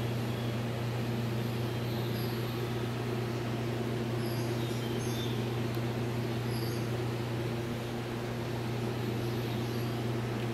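Siamese cat purring steadily close up while being stroked, a low continuous rumble.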